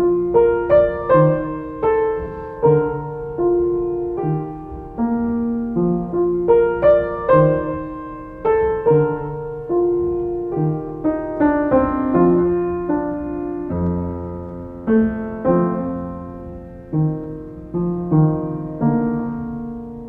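Soft piano music: a slow melody of single notes, each struck and left to fade, over a gentle lower accompaniment.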